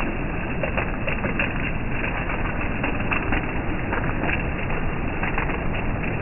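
Steady rain: an even hiss with many scattered sharp drip taps.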